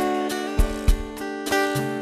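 Instrumental song intro: acoustic guitar strumming sustained chords, with low thumps falling on the beat.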